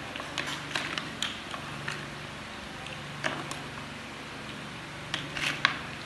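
Plastic toy building blocks clicking and clattering on a tabletop as a hand picks through a pile of them: a scattering of light, irregular clicks, the sharpest near the end.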